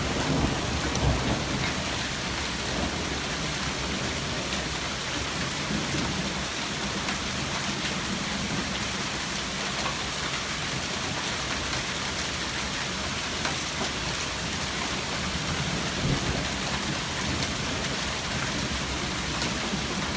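A hail storm: dense hail and rain pelting down in a steady hiss, with scattered sharp ticks of hailstones striking. A low rumble of thunder dies away in the first second or two.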